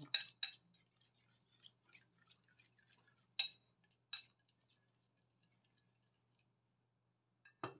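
Chopsticks beating eggs in a ceramic bowl: a few sharp clinks against the bowl with faint light tapping in between, and a louder knock near the end.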